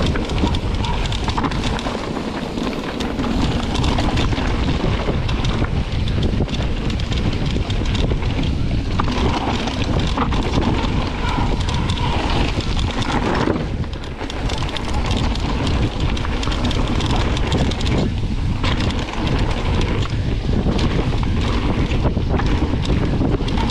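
Wind rushing over an action camera's microphone while a mountain bike rolls fast down a dirt and gravel trail. The tyres crunch on gravel and the bike rattles over bumps in frequent short clatters.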